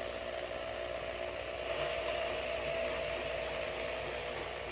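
Electric drill running with a steady whine, turning the engine's oil pump through a priming shaft to pre-oil the engine. The drill is under load as the pump moves oil.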